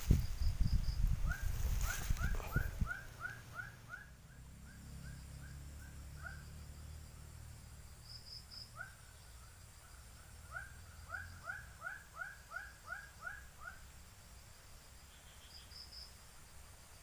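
Rustling and knocking close to the microphone for the first few seconds, then an animal calling in two long series of short chirps, about three a second, each note dipping slightly in pitch.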